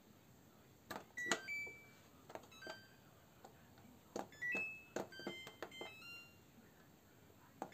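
Samsung WF0800NCE washing machine's control panel being operated: a series of clicks, each with a short electronic beep at varying pitches, in three clusters.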